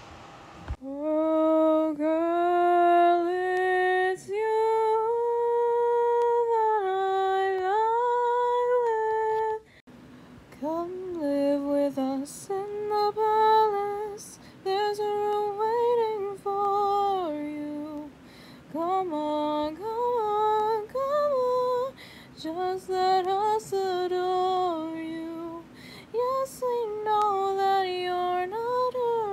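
A solo female voice singing unaccompanied, holding and sliding between notes. About ten seconds in, one recording cuts off and a different take begins.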